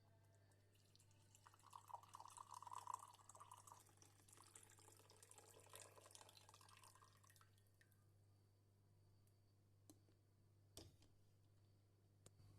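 Faint water pouring and trickling for about six seconds, then a few light clicks.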